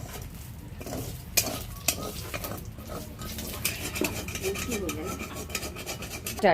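Metal spatula stirring and scraping nuts frying in oil in a pan, with sharp clinks against the pan and a light sizzle. A brief, loud rising squeal comes at the very end.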